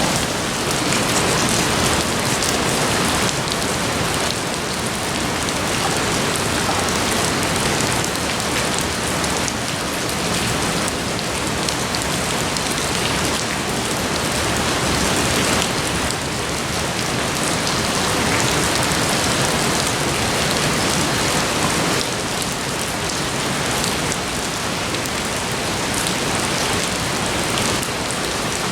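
Steady rain falling, a dense even hiss that swells and eases slightly.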